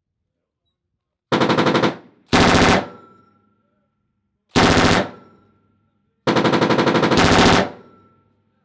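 Belt-fed machine gun firing four short bursts of automatic fire, the last one the longest, each trailing off in echo.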